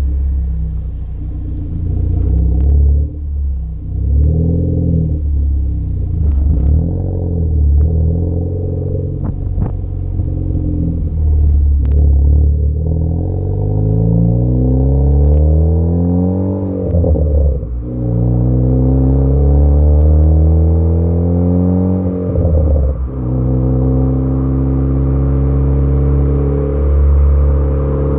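Tuned Ford Focus ST's turbocharged engine revving: a few single exhaust pops at first, then the revs climb twice and drop off sharply, with a burst of pops and crackles as they fall, before it settles back to a steady idle.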